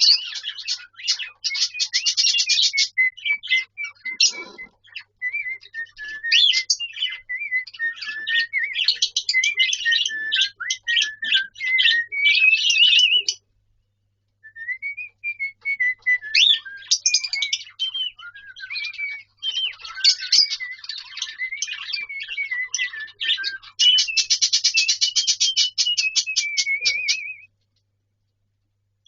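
Cockatiel whistling and chattering: wavering whistled notes mixed with fast buzzy chatter. It pauses for about a second around halfway and stops shortly before the end.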